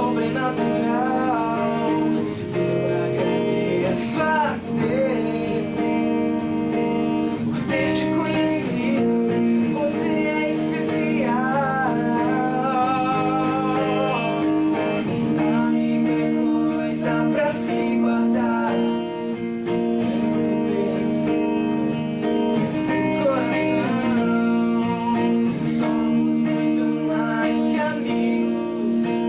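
Pop-rock band performing a song, with strummed guitars under a sung melody.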